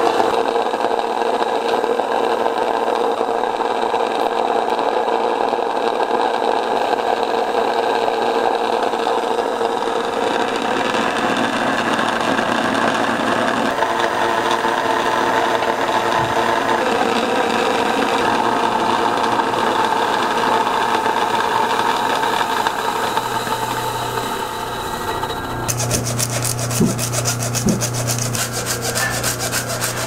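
Electric tabletop grain mill running, grinding buckwheat into flour with a steady, dense rasping grind. Near the end, rapid fine scraping as the flour is worked through a mesh sieve with a wooden stick.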